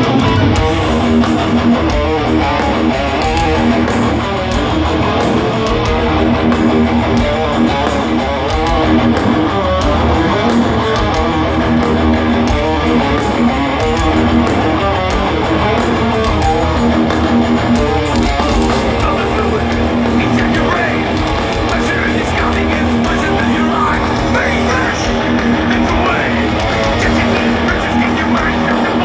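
Live thrash metal played at concert volume through a festival PA, dominated by distorted electric guitars with bass, heard from within the crowd.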